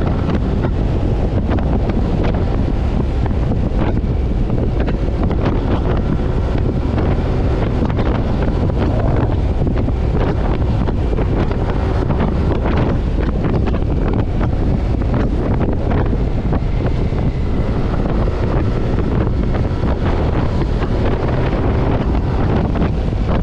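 Steady wind noise buffeting a GoPro action camera's microphone on a moving Yamaha NMAX scooter, with the scooter's engine running underneath at a steady cruising speed.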